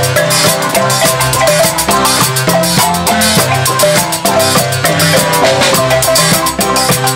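Zimbabwean-style marimba band playing a fast, rhythmic piece: quick repeating mallet notes on wooden marimbas over low bass-marimba notes, with a drum kit and cymbals keeping the beat.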